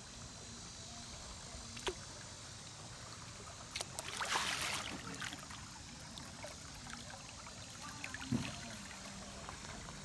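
Creek water trickling and rippling around a kayak, with a short burst of splashing about four seconds in and a couple of light knocks.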